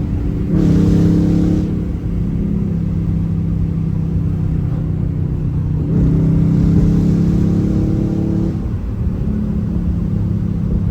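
2022 Dodge Charger R/T's 5.7-litre Hemi V8 with cold air intake, running through a loud exhaust with the rear mufflers and mid-pipe resonators cut out and 5-inch tips, as the car drives. The engine note swells and climbs in pitch under acceleration about half a second in and again around six seconds in, easing back between.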